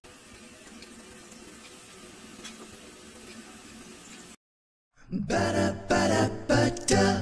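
A faint steady hum, then a half-second gap of silence, after which background music with singing comes in loudly about five seconds in.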